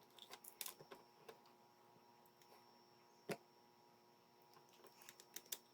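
Faint, scattered small clicks and taps of a screw and metal servo-bracket parts being handled, with one sharper click a little past halfway.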